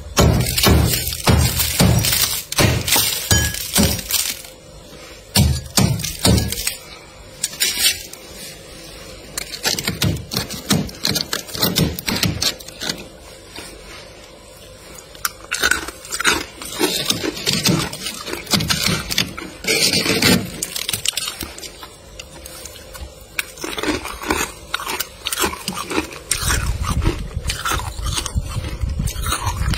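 Thick freezer frost being scraped and broken off the shelves by hand, crunching and crackling. A dense run of crackles comes in the first four seconds, then sparser crunches.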